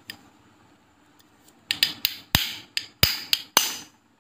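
Small watchmaker's hammer tapping a steel pin punch: about eight sharp metallic taps a few tenths of a second apart, each with a brief ring, starting about halfway through.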